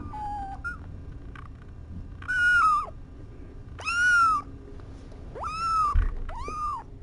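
Young kittens mewing: four high-pitched cries of about half a second each, in quick succession, the last two close together. There is a short low bump about six seconds in.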